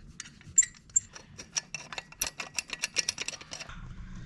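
Rapid metallic clicking of a ratchet wrench running in an exhaust mounting bolt: two sharp clicks, then a fast even run of ticks that stops near the end.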